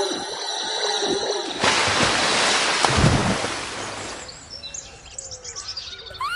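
Music stops about a second and a half in, cut off by a loud water-splash sound effect of a rocket plunging into a pond, lasting about two seconds. Faint birds chirping follow.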